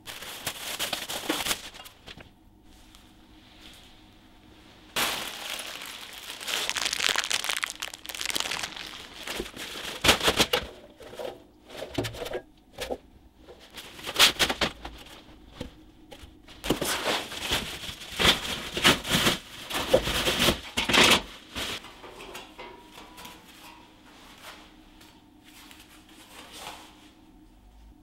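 Bubble-wrap packaging crinkling and rustling in irregular bursts as wrapped steel panels are handled and lifted out of a cardboard box, with a few sharp clicks and knocks among them.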